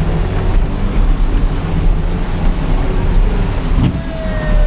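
Suzuki Jimny Caribian's engine running steadily as the 4x4 wades through a water crossing, with water rushing and sloshing around the body.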